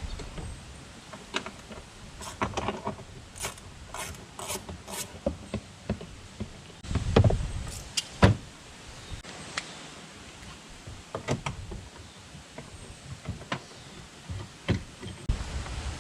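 Hand tools working on the 10 mm bolts of a pickup's door handle area: scattered clicks and knocks, a run of four evenly spaced clicks about four seconds in, and two louder knocks about seven and eight seconds in.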